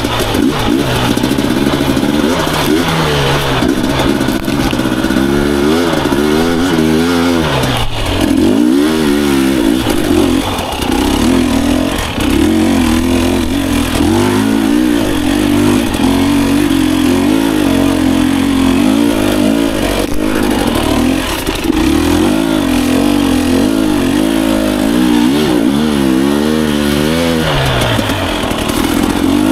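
Husqvarna TE250i two-stroke enduro motorcycle engine being ridden, revving up and down again and again as the throttle is worked, with brief drops off the throttle.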